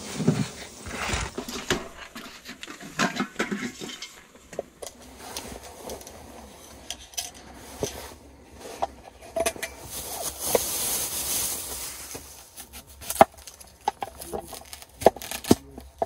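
Scattered knocks, taps and clinks of camp cooking gear being handled: a plate, and a folding wooden cutting board being opened and set down on a table, with a few seconds of soft hiss around the middle.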